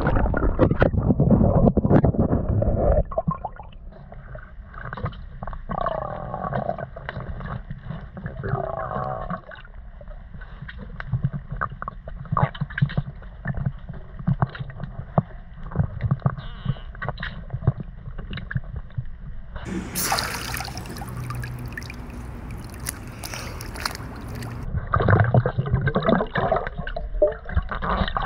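Pool water heard through an underwater camera's microphone. It opens with a loud rush of water and bubbles as a person plunges under. Then come muffled gurgling, bubble pops and small clicks and knocks from a box being handled underwater, with a few seconds of loud hissing splash about two-thirds through and more loud bubbling near the end.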